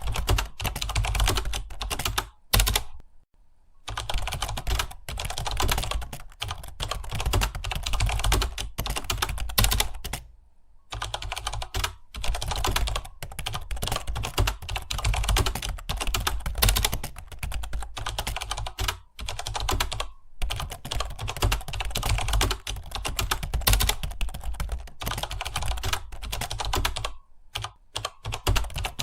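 Fast, continuous typing on a computer keyboard: a dense run of keystrokes broken by a few short pauses.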